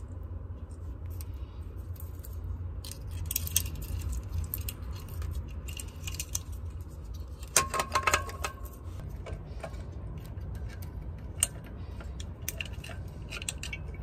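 Small metal parts clicking and clinking as a well-pump pressure switch and its fittings are handled and fitted onto the pump, with a sharper run of ringing metallic clinks about seven and a half seconds in. A steady low rumble sits underneath.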